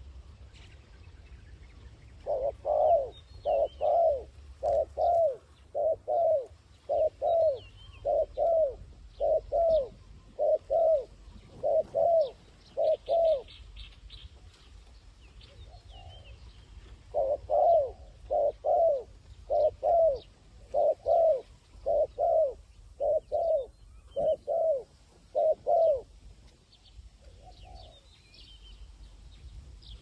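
A dove cooing: a long series of paired coo notes, repeated about every three-quarters of a second, in two runs of roughly ten seconds with a short break between them. Small birds chirp faintly throughout.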